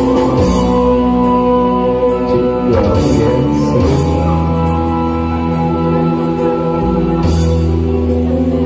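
Music playing with a man singing a Sundanese song into a microphone, amplified through a PA sound system.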